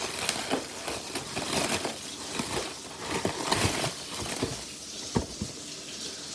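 Snack packaging crinkling and rustling as it is opened and the snacks are taken out, with a few sharp taps among the crackle.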